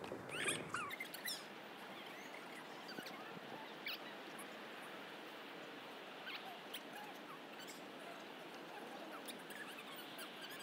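Faint outdoor ambience: a steady hiss with scattered short, high chirps and squeaks, a cluster of them about half a second in.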